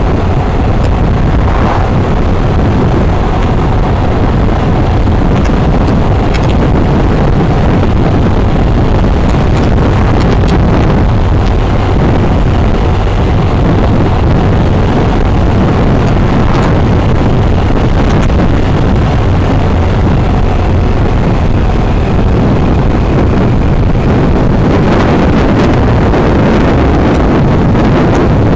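Steady wind noise on the microphone of a motorcycle cruising at road speed, with the bike's engine running underneath.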